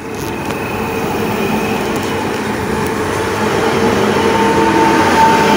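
Electric multiple unit (48WEb-021) pulling out and passing alongside the platform: a steady rumble of wheels and running gear, with a whine that strengthens near the end as it picks up speed.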